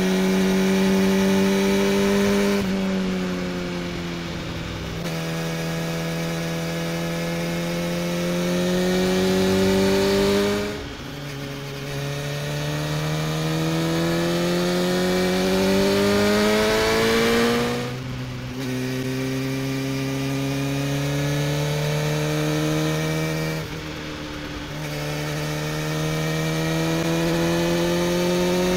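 Sport motorcycle engine and exhaust heard from on board under hard acceleration. The note climbs steadily and drops back sharply four times, with a brief dip in loudness at each drop.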